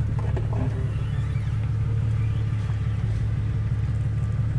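Jeep Cherokee XJ engine running steadily at low revs as the Jeep crawls slowly over dirt, a constant low hum with no revving.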